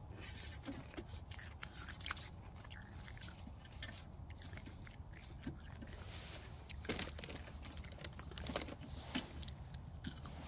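Plastic tarp crinkling and rustling as it is handled and pulled, in uneven crackly bursts with scattered clicks, busier and louder about seven seconds in.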